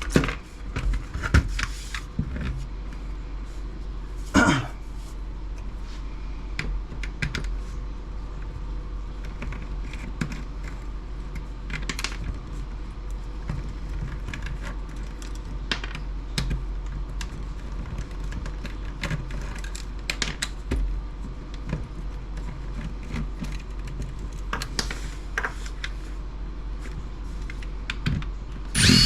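Irregular small clicks, taps and knocks of hands and tools handling a plastic laptop docking station during disassembly, with a few louder knocks, over a steady low hum.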